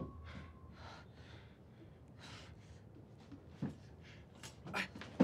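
Faint breathing and gasps, with light rustling and a couple of soft knocks in the second half.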